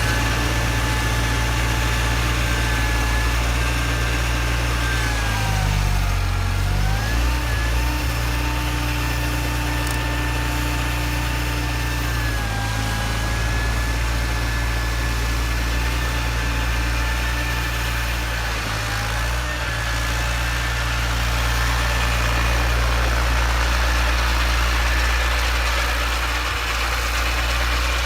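John Deere 318 garden tractor's two-cylinder engine running steadily, driving its Model 49 snowblower, with a steady whine. The pitch sags briefly three times, about six, twelve and nineteen seconds in, and recovers each time, as the engine takes load.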